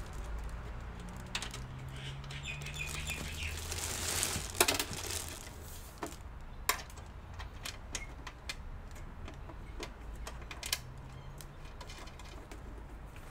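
Handling noise: a plastic wrapping bag rustling, most around four seconds in, with scattered sharp clicks and knocks of a small metal desktop PC case being turned and set down on the bench.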